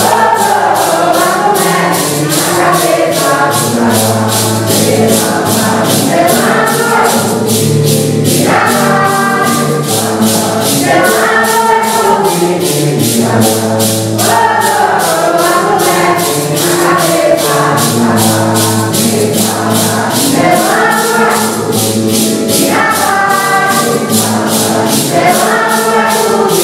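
A congregation of men and women singing a Santo Daime hymn in unison. Maracas are shaken in a steady beat of about three shakes a second.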